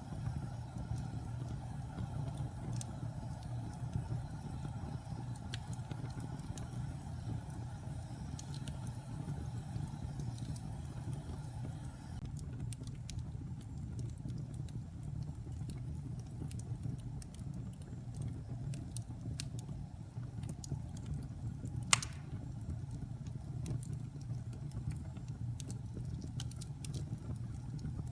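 Wood fire burning in a fireplace: a steady low rumble of flames with scattered small crackles and one sharp pop about three-quarters of the way through.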